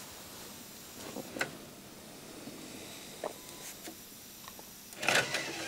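Faint whirring of a Sony MiniDisc deck's mechanism with the disc spinning, with a few soft clicks from the mechanism. A brief louder rustle comes near the end.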